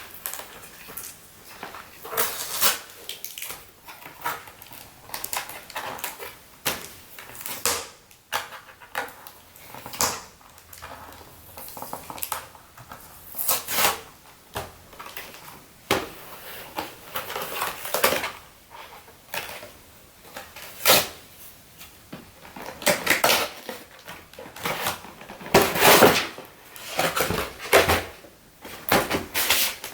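Doll packaging being opened by hand: irregular rustling, crinkling and tearing with occasional knocks.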